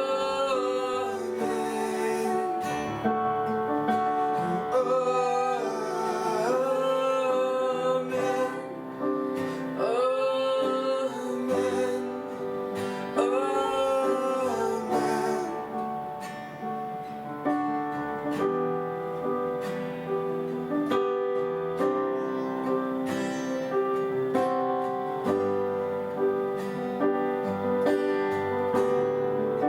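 Worship music: acoustic guitar playing with a voice singing over it. About halfway through, the singing drops out and the guitar carries on alone.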